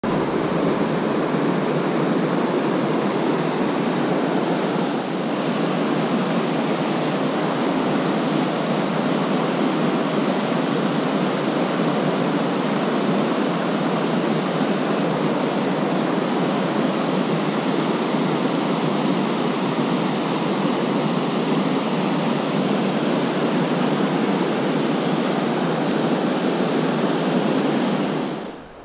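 Steady rush of river water pouring over a low rocky cascade and through rapids, heard close up. It cuts off suddenly near the end.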